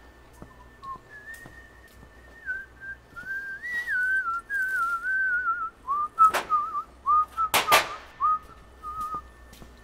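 A person whistling a wandering tune, broken by a few sharp metallic knocks in the second half, the loudest about six and seven and a half seconds in.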